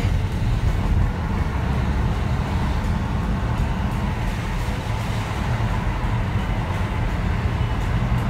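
Steady road noise inside a moving car's cabin: a low, even rumble of engine and tyres on the road.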